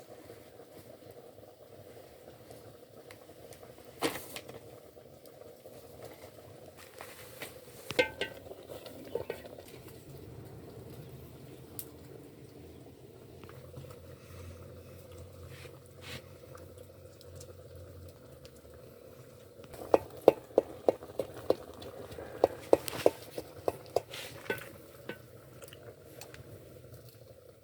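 Cooking pot simmering, with a metal utensil knocking against the pot a few times and then a quick run of taps about twenty seconds in, like stirring and scraping.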